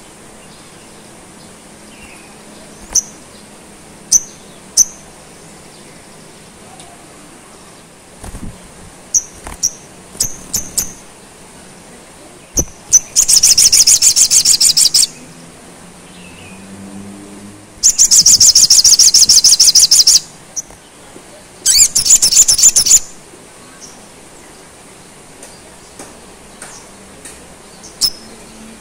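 Male olive-backed sunbird singing: scattered sharp high chips and short note clusters, then three long, very fast, high-pitched trills of about one to two seconds each, with another trill starting at the very end.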